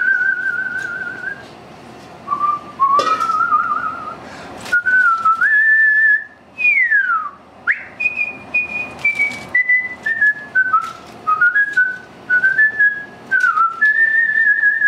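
A man whistling a slow tune: held, wavering notes stepping up and down, with one quick downward swoop midway. Scattered knocks and rustles come from cabbage leaves being dropped into a steel pot and stirred with a wooden spoon.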